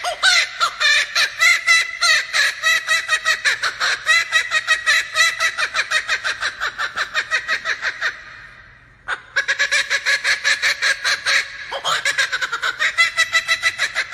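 Laughing kookaburra giving its laughing call: a long run of rapid, repeated cackling notes, about five a second, breaking off about eight seconds in and starting again a second later.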